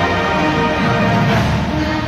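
Marching band playing, with brass holding chords, echoing off tall buildings.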